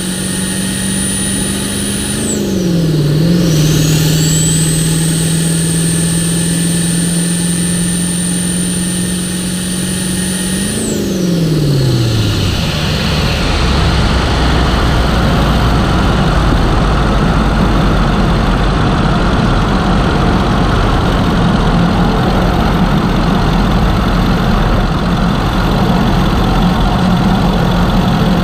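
1997 Ford F-250's 7.3 PowerStroke V8 turbo diesel running with its turbocharger whistling, a high steady whine that follows engine speed. About two seconds in, the whine and engine note dip and climb back. Near the middle both fall away as the engine slows, leaving a lower, steady engine sound.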